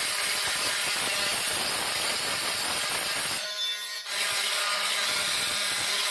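Corded oscillating multi-tool with a 1.7 mm diamond-grit grout blade raking out old grout between ceramic floor tiles: a steady gritty grinding that lets up briefly a little past halfway, then carries on.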